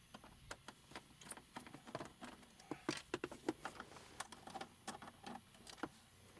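Irregular light clicks and taps of a screwdriver working the screws out of a car's plastic dash trim, with a cluster of quicker clicks about halfway through.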